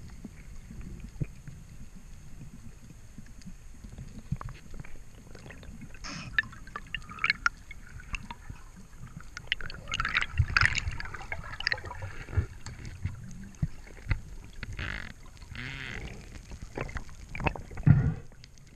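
Sea water splashing and gurgling close to the microphone, over a steady low rumble, with scattered knocks and clicks; the splashing is busiest in the middle and again near the end.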